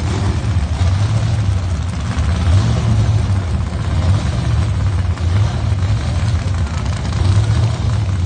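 Drag-racing cars' engines idling at the starting line, a loud low rumble that wavers unevenly in level.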